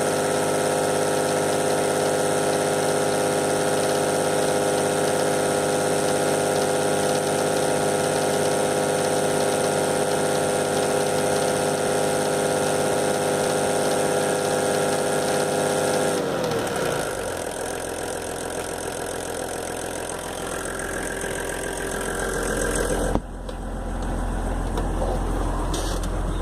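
VW LT 28 van engine idling steadily with a noise that the owner puts down to the vacuum pump. About two-thirds through, the engine is switched off and winds down with a falling pitch, leaving a low rumble, with a sudden knock a few seconds before the end.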